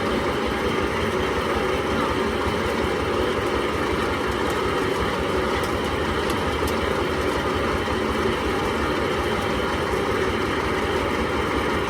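Corn sheller with a conveyor running, driven by its 30 hp Dong Feng single-cylinder diesel engine: a steady, even machine noise.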